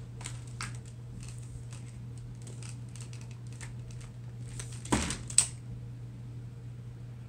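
Faint scattered clicks of small objects being handled, then a thump and a sharp click about five seconds in, over a steady low hum.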